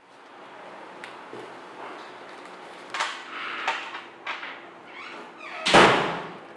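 Soft clicks and rustles of playing cards being handled at a table, then near the end a loud bang with a deep thud as a door is slammed shut.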